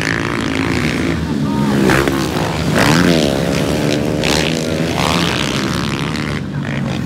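Several motocross dirt-bike engines running on the track, revving up and falling off as the riders work the throttle, with one strong rise and fall in pitch about three seconds in.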